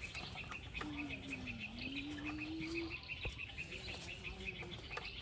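Electric motor whine from the RC excavator, a steady tone that sags in pitch and climbs back as it works, then stops about three seconds in, with a fainter whine near the end. A rapid, even high-pitched chirping, about seven pulses a second, runs underneath throughout.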